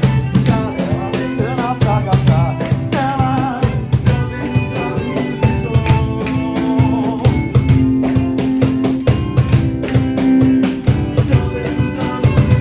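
A band playing live in rehearsal: a drum kit keeping a steady beat under guitar and other held instrumental notes.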